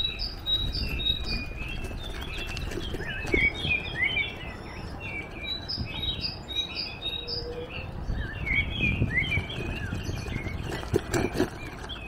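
Small songbirds chirping and singing in quick, repeated high notes, over a steady low rumble, with a few light knocks about eleven seconds in.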